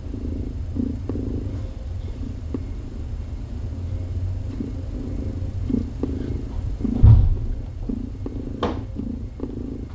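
A cat purring close to the microphone, a steady low rumble that swells and eases in a slow rhythm with each breath. A louder thump comes about seven seconds in.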